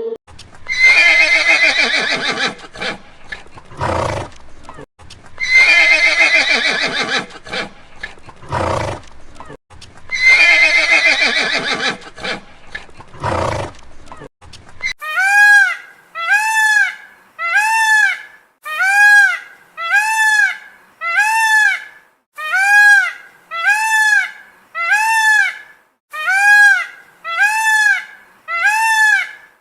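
A horse whinnying three times: the same neigh, each falling in pitch and about five seconds apart. About halfway through it gives way to a different animal's short call, repeated about once a second.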